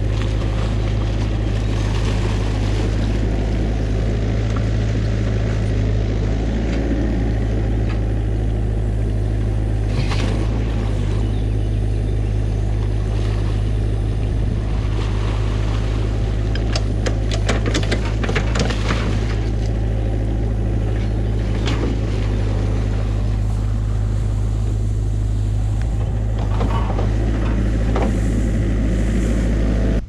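New Holland mini excavator's diesel engine running steadily at working speed, a constant low hum, with a few short knocks and clatters as the bucket digs in the stream.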